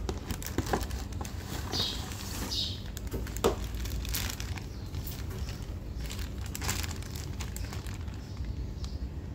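A new cabin air filter's packaging being handled: the filter slides out of its cardboard box and its clear plastic wrapping crinkles in irregular bursts, with a sharper click about three and a half seconds in, over a steady low background rumble.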